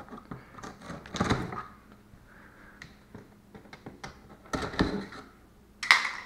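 A large cardboard shipping box being handled and opened with a utility knife: a few separate scrapes and thumps, the heaviest thump about four and a half seconds in, and a sharp rasp of the tape being slit near the end.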